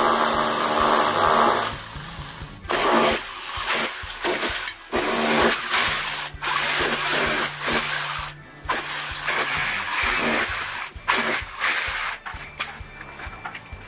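Electric hammer with a chisel bit chipping a chase into a brick wall to embed a cable conduit. It runs in one long burst at the start, then in many short stop-start bursts.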